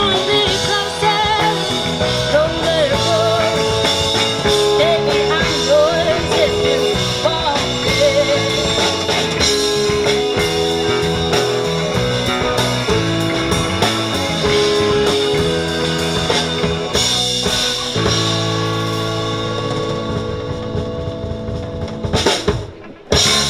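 A live rock band playing: electric guitar, drum kit with snare hits, and a woman singing. The song ends on a long held chord that stops near the end.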